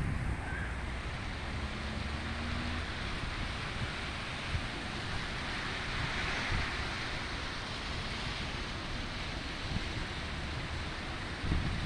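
Steady rain falling, an even hiss, with wind rumbling on the microphone.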